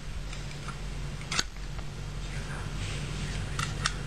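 Steel parts of a Vz. 58 rifle's slide and bolt being handled: one sharp metallic click about a second and a half in, then light clicks and rustling near the end.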